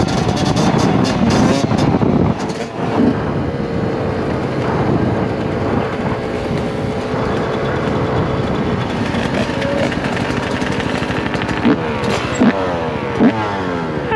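Yamaha YZ125 single-cylinder two-stroke dirt bike engine running at a fairly steady pitch, then revving up in several quick rising sweeps near the end.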